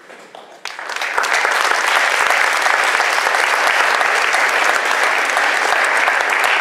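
Audience applauding, starting suddenly less than a second in and then holding steady and loud.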